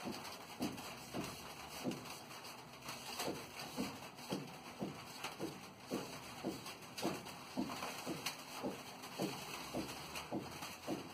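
Rhythmic rubbing of a cloth or pad along a red-stained wooden picture frame, about two short strokes a second, each a brief squeaky swish falling in pitch.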